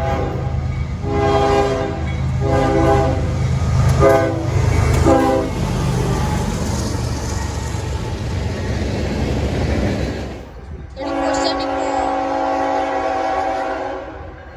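Locomotive air horn sounding four blasts in quick succession, each a chord of several steady tones, over the rumble of the train. The train then runs past with a steady rumble and hiss. After a sudden break, one long horn blast of about three seconds.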